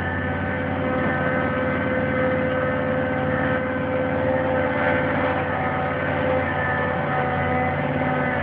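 Caterpillar 3208 V8 diesel of a CAT 225LC excavator running steadily, with a steady whine over the engine note.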